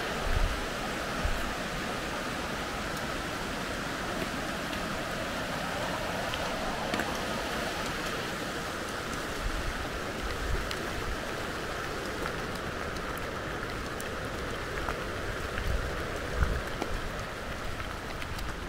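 Steady rush of flowing water, with a few short low thumps, the loudest about half a second in and near the end.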